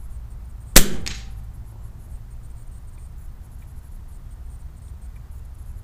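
A single loud shot from an FX Impact PCP air rifle about a second in, followed a moment later by a fainter second crack. The report is louder than normal because the air reservoir has fallen below the regulator setting: plenum pressure is low and the rifle is shooting off the regulator.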